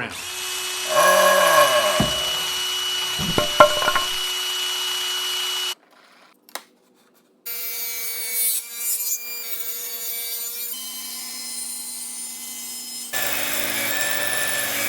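Woodworking power tools cutting and sanding wood in a run of short clips, each with its own steady motor hum, that break off abruptly one after another, with a short near-silent gap about six seconds in.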